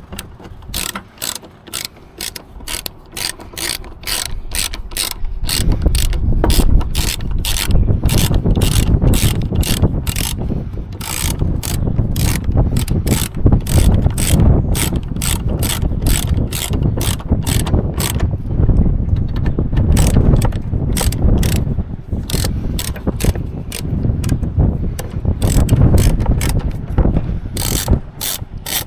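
Hand ratchet wrench clicking in steady runs of about two or three clicks a second as bolts are turned, over a low rumble.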